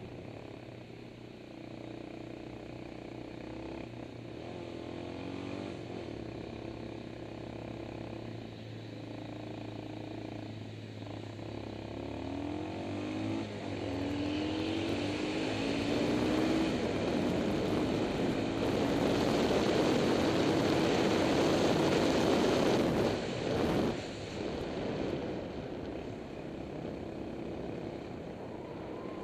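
Motorcycle engine running on the move, its pitch rising and falling with throttle and gear changes. The noise swells to a loud rush while overtaking a truck, then drops off sharply about 23 seconds in.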